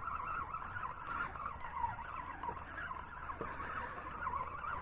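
Spinning fishing reel being wound in against a small hooked fish, a faint wavering whine that rises and falls with the cranking over a low rumble.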